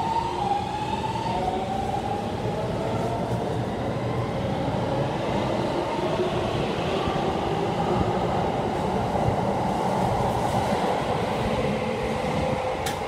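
Keikyu 1000 series electric train's Siemens traction inverter "singing", its motor tone climbing in steps like a musical scale as the train pulls out and accelerates. The rolling noise of the passing cars grows underneath, and a short click comes near the end.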